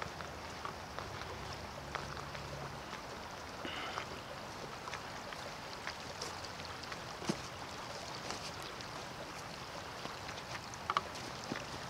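Fast-flowing floodwater of a swollen creek rushing in a steady wash, with a few light clicks scattered over it.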